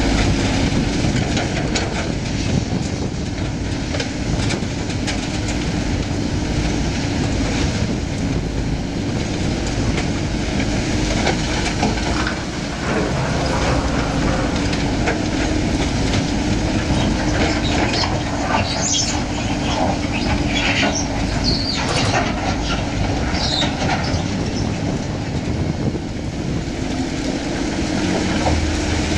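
Diesel construction machinery, a Komatsu PC240 tracked excavator with Caterpillar machines, working a pile of demolition rubble: a steady engine drone under constant rattling and clatter. A run of sharper clanks and knocks of broken concrete comes in the second half.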